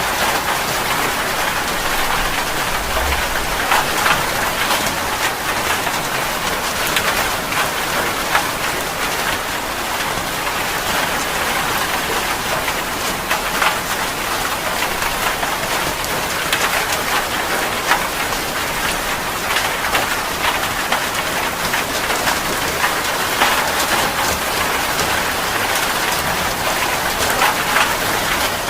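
Steady rain falling: a dense, even hiss with many distinct drops ticking on a surface.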